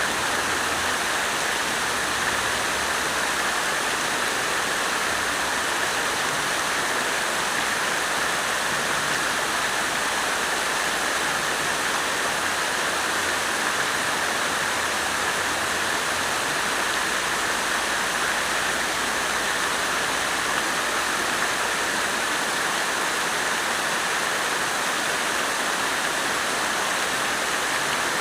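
Water fountain splashing steadily, falling water making an even, unbroken rush.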